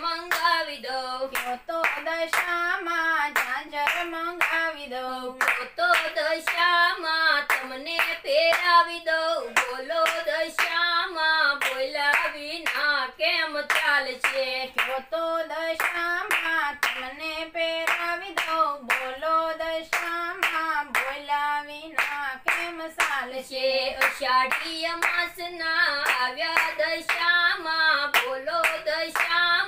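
Gujarati devotional song to Dasha Maa, a single voice singing the refrain, with steady hand-clapping keeping the beat throughout.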